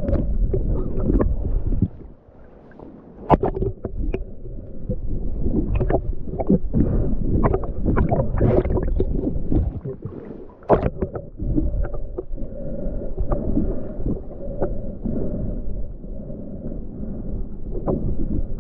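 Muffled underwater gurgling and bubbling from a river diver, with scattered sharp knocks and a short quieter spell about two seconds in.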